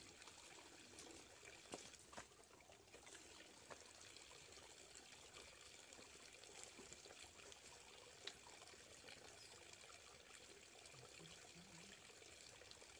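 Faint steady trickle of spring water running over rocks, with a few soft clicks scattered through it.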